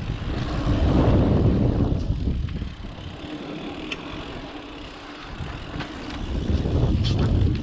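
Wind rushing over the microphone with the rumble and rattle of a mountain bike's tyres on a dirt trail during a fast descent. It drops quieter for a couple of seconds about three seconds in, then builds again.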